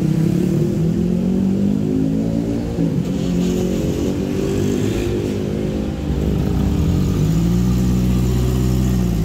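Motorcycle and car engines passing close by and revving as road traffic moves off across a railway level crossing, several engine notes rising and falling over one another. From about seven seconds in, one engine's note climbs and holds steady.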